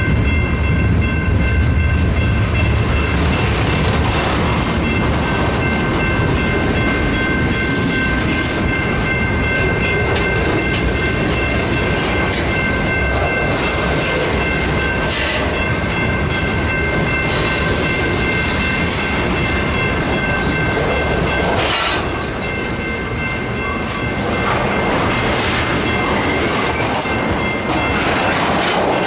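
Freight cars (gondolas, covered hoppers and tank cars) rolling steadily past on the rails, their wheels rumbling and clacking over the rail joints, with a few louder clanks. A steady high-pitched whine runs through the whole passage.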